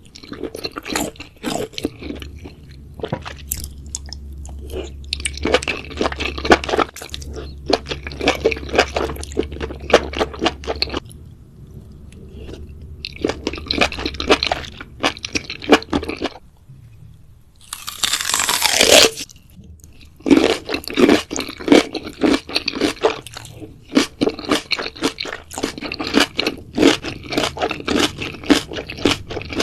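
Close-miked eating: crunchy bites and chewing in repeated runs with short pauses between them. About two-thirds of the way in there is a louder, noisier stretch of roughly a second.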